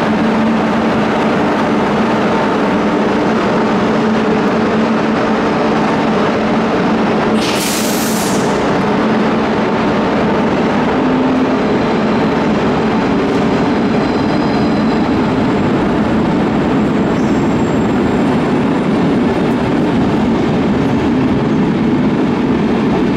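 Departing passenger train, an NS class 1700 electric locomotive with Intercity coaches, rolling slowly past: a loud, steady rumble of wheels on rail with a low hum. A brief hiss of air sounds about seven seconds in.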